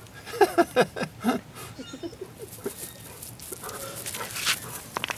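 Puppy yipping and whining in play: a quick run of high, short yelps that fall in pitch over the first second and a half, then softer scattered yips.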